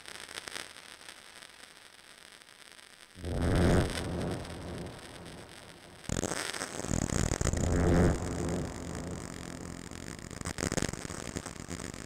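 Korg Volca synthesizer run through a KP3 Kaoss Pad and OTO Biscuit effects, making distorted, noisy electronic textures: a low hiss, a loud swell about three seconds in, then a sudden, louder dense noise from about six seconds on.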